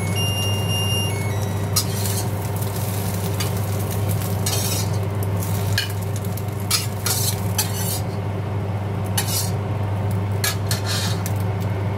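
Metal spatula scraping and clinking against a wok as scrambled eggs are stirred and scooped out onto a plate, in many short uneven strokes. A steady low hum runs underneath, and a short high beep sounds at the very start.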